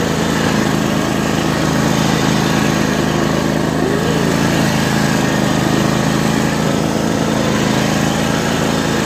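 Riding lawn mower's small engine running steadily under way through snow, a constant drone with no change in speed.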